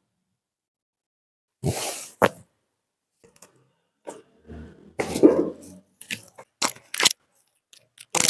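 Sharp cracks and knocks from a chiropractic manual adjustment, joints popping as the body is manipulated: one crack about two seconds in, then a cluster of several quick cracks in the second half, mixed with bursts of movement noise.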